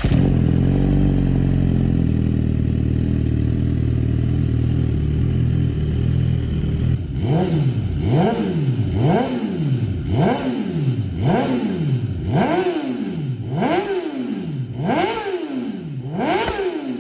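Suzuki GSX-R1000 inline-four engine breathing through an Arrow Race-Tech carbon slip-on exhaust: it idles steadily for about seven seconds, then is revved in quick throttle blips, about one a second, each rising and falling back.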